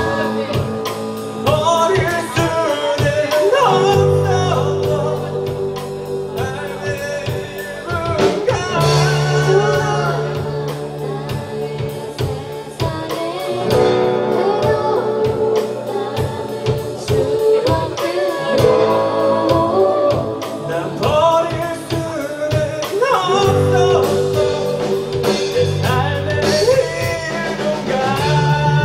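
Live band performing a song: a lead vocal over guitar, sustained bass notes and a steady drum beat.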